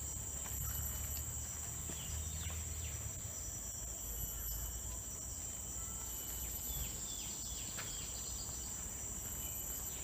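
Tropical forest ambience: a steady high-pitched insect drone, with a few short falling bird chirps about two seconds in and again around seven to eight seconds, over a low rumble.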